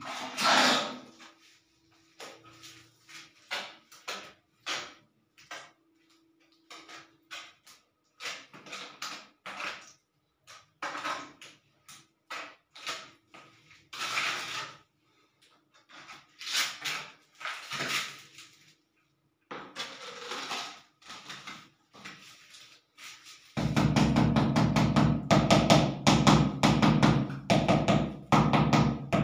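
Trowel scraping and knocking on a mortar bucket and tile, in short, scattered strokes. From about 23 seconds in, rapid, louder tapping of a mallet on a ceramic wall tile, bedding it into the fresh mortar.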